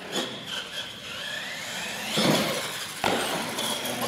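A radio-controlled monster truck driving across a concrete floor, its motor giving a rising whine as it speeds up, with a louder burst of sound about three seconds in.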